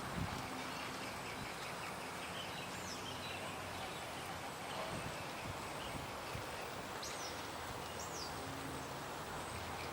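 Several wild birds calling faintly over a steady background hiss: strings of short high chirps, and a few quick high whistles that sweep down in pitch, about three, seven and eight seconds in.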